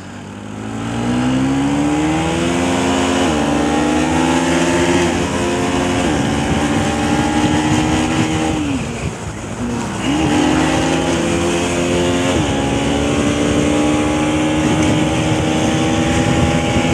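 Bajaj Pulsar NS200's single-cylinder engine accelerating hard through the gears, its pitch climbing and dropping back at each of several upshifts. About halfway through it falls away as the throttle closes, then climbs again through two more shifts.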